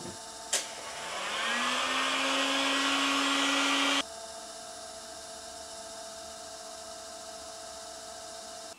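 Electric wood lathe switched on with a click, its motor whining up in pitch over about a second and then running steadily. The whine cuts off abruptly about four seconds in, leaving a quieter steady hum.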